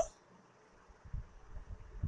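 A hand rubbing oil into coarse wheat flour in a glass mixing bowl: faint, soft, irregular rubbing and patting sounds that begin about a second in.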